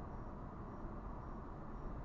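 Car on the move: a steady low rumble of road and engine noise.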